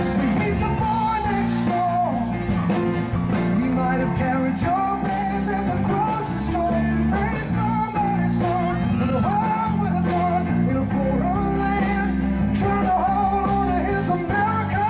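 Live rock-and-roll song: a man singing lead into a microphone over his own guitar and backing music.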